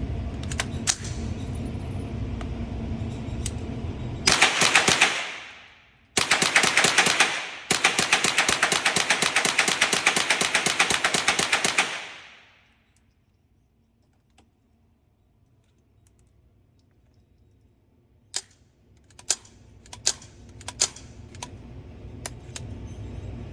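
Rapid .22 rimfire gunfire: strings of shots so close together that they blur into a rattle, in two runs with a short break, then a few separate cracks near the end.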